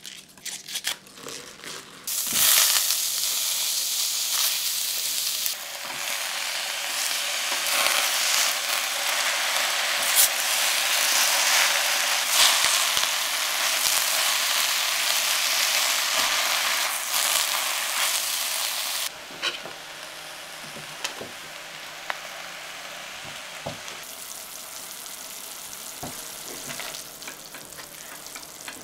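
Cavolo nero and shredded carrot sizzling loudly in oil in a frying pan as they are stirred with a spatula. The sizzle starts about two seconds in, after some leafy crinkling and tearing. About two-thirds of the way through, it drops to a quieter sizzle with scattered clicks of the spatula, from a thick, dark vegan XO sauce of onion and garlic reducing in a saucepan.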